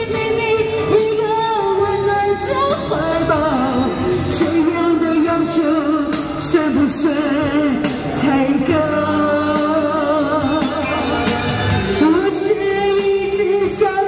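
A woman singing a pop song live through a handheld microphone and portable amplifier, over recorded backing music. Her held notes carry a clear vibrato.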